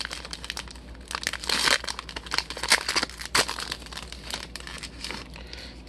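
Foil wrapper of a 2020 Panini Prizm hobby pack crinkling as it is torn open, a dense run of irregular crackles that thins out after about three and a half seconds.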